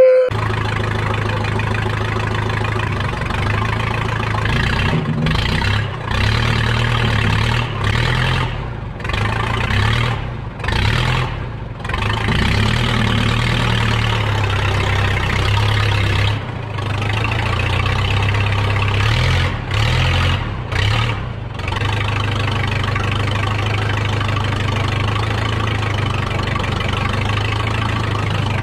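Diesel-era Case 580 Construction King backhoe engine starting up and running. Its sound sags briefly several times between about five and twenty-one seconds in, then runs steadily.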